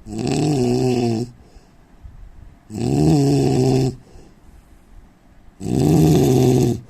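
A man snoring in sleep: three loud, droning snores, each a little over a second long, coming about every three seconds with quiet breathing gaps between.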